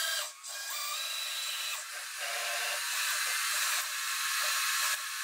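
Bridgeport Torq-Cut 22 CNC mill driving its chamfer mill down toward the lathe tool, a steady hissing whir of the machine's axis drives starting a moment in.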